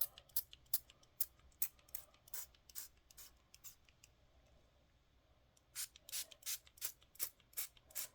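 A small pump spray bottle of device-cleaning sanitizer being pumped over and over, short sharp spritzes about three a second, stopping for about two seconds midway and then starting again.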